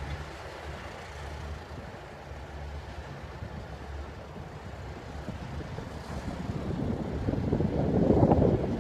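Diesel locomotive engine running with a steady low hum, heard from a distance. Wind starts buffeting the microphone in gusts near the end and becomes the loudest sound.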